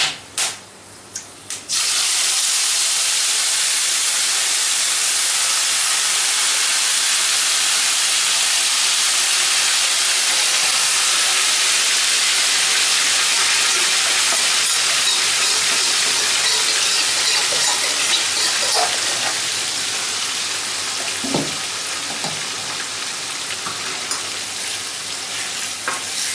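Marinated chicken sizzling loudly in hot oil in a pan, the hiss bursting up suddenly about two seconds in as the chicken goes in, then running steadily and easing off a little in the last third. A couple of light knocks sound about three-quarters of the way through.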